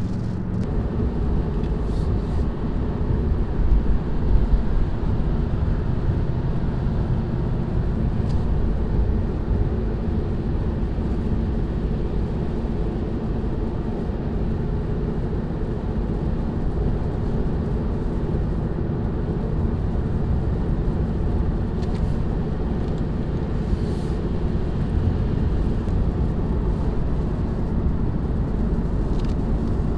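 Steady in-cabin drone of a 2018 Ford Mustang GT's 5.0 L V8 and its tyres on a wet interstate at highway speed, with a brief louder rush about four seconds in.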